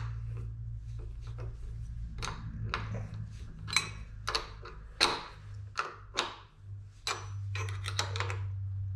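Small hand wrench clinking against the caster bracket's bolt and nut as it is turned, a string of irregular metal clicks, over a steady low hum.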